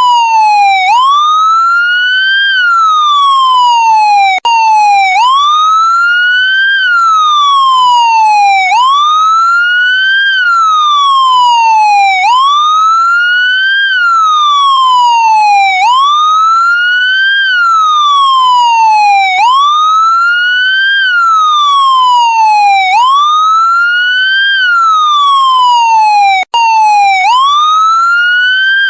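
Police siren on wail: an electronic tone that climbs quickly and then slides back down, repeating about every three and a half seconds. The sound cuts out for an instant twice, a few seconds in and again near the end.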